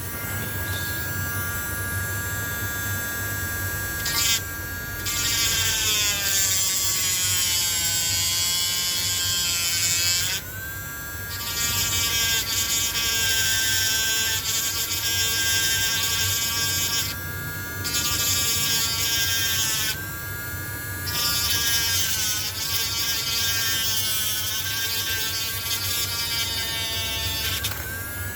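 Small electric drill running with a high-pitched whine whose pitch sags and recovers as the bit bites into a seized screw. A high grinding hiss from the cutting stops and restarts a few times while the motor keeps spinning.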